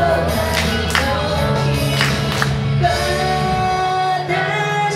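A woman singing a J-pop song into a handheld microphone over accompaniment with drums and bass. A little past halfway the drums stop and she holds long notes over a thinner backing.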